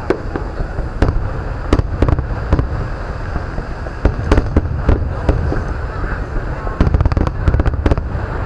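Aerial fireworks shells bursting: a string of sharp cracks and booms in clusters, thickest near the end, over a steady low rumble.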